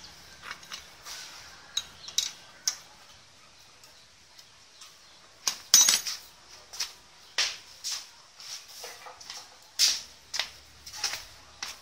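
Used engine oil dripping from a motorcycle crankcase drain hole into a metal paint tin, giving irregular light plinks and clinks, with one louder splash a little before six seconds in.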